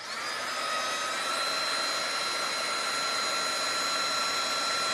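Craft embossing heat tool switched on with a click and blowing steadily, its fan whine rising in pitch over the first second and then holding level. It is heating gold embossing powder to melt it.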